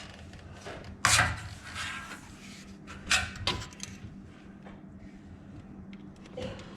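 Hands-on work noise: a sharp knock about a second in, then two more knocks around three seconds in, with light rubbing and ticking between them. A faint steady low hum runs underneath.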